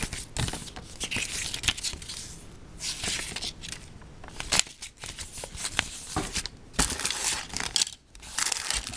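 Plastic parts bags and paper from a Lego set being handled, with crinkling and rustling and short sharp crackles.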